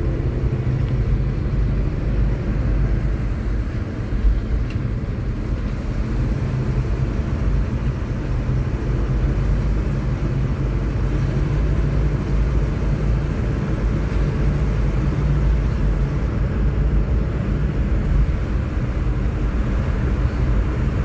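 Steady low rumble of a car driving, with engine and tyre noise on a damp road heard from inside the cabin. There is one brief knock about four seconds in.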